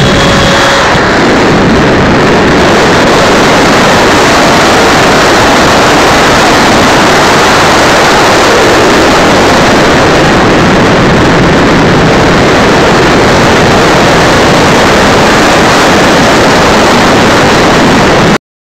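Loud, steady rushing of air and the twin 90 mm electric ducted fans of a large foam radio-controlled jet in flight, picked up by a camera on the jet's nose, so the wind beats on the microphone. A faint steady whine shows in the first second, and the sound cuts off suddenly near the end.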